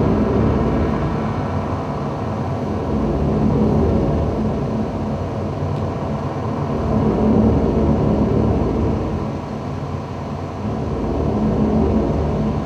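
A low rumbling drone from the performance soundtrack, swelling and easing back in slow waves about every four seconds.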